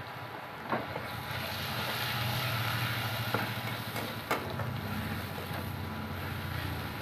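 Onions and spice powders sizzling in hot oil in a kadai while being stirred, the sizzle growing louder about a second in, with a few sharp clinks of the metal spatula against the pan.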